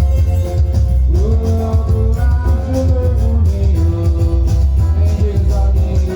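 Music: a song with singing over a steady, heavy bass and guitar accompaniment.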